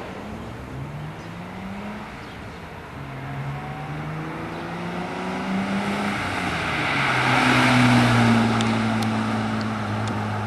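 Holden VR Commodore ute's V6 engine accelerating through the gears of its five-speed manual: the engine note climbs, drops at each gear change, and climbs again. Road and tyre noise grows with it, loudest about eight seconds in, then eases off a little.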